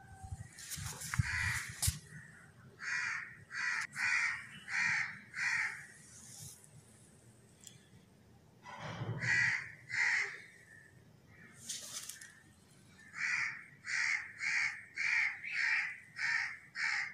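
A bird calling outdoors in runs of short repeated calls, about two a second, with pauses between the runs. A few sharp knocks come about a second in.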